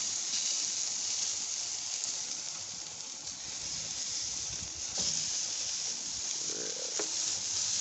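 Food sizzling on a gas grill: a steady hiss, with two clicks about five and seven seconds in.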